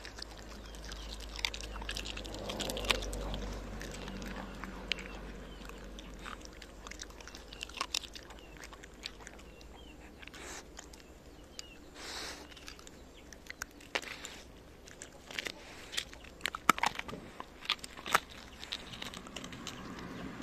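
Shiba Inu gnawing and crunching a stock-boiled chicken carcass: irregular sharp bone cracks and chewing, with a cluster of louder cracks about three-quarters of the way through.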